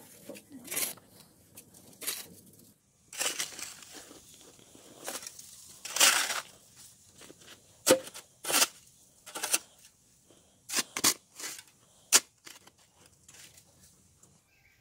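Red plastic snow shovel scraping and digging into a heap of snow in a series of separate crunching scrapes, with a longer, louder scrape about six seconds in.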